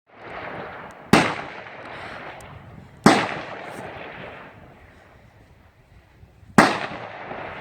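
Three gunshots: one about a second in, one about three seconds in, and one near the end. Each is followed by a trailing echo that dies away over about a second.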